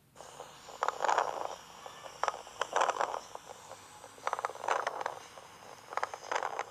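Lung sounds heard through a stethoscope, with crackles: four breaths, each with a cluster of short clicks and crackling. Crackles are a sign of lung disease such as pneumonia, pulmonary fibrosis or poorly ventilated lung bases.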